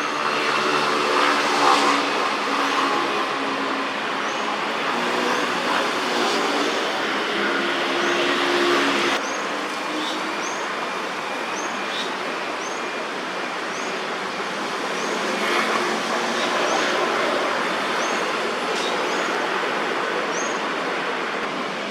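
Steady road traffic noise, with an engine hum in the first several seconds that changes abruptly about 9 s in. A faint, short high chirp repeats about once a second.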